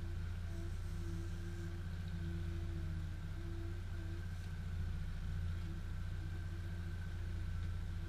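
A boat motor idling with a steady low hum.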